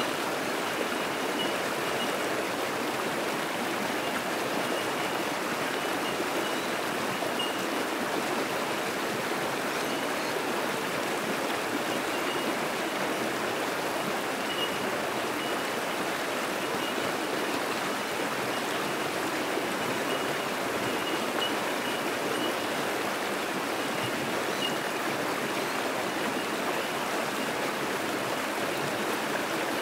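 Fast-flowing bush creek rushing over rocks, a steady, even rush of water. Faint, short, high bell-like notes of bell miners (bellbirds) recur every second or so over the water.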